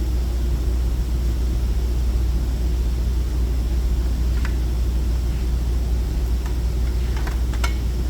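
A steady low drone with faint hiss, and a few light clicks and taps about halfway through and near the end.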